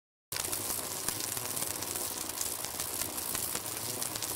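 A steady hissing, crackling noise that cuts in abruptly about a third of a second in, after dead silence.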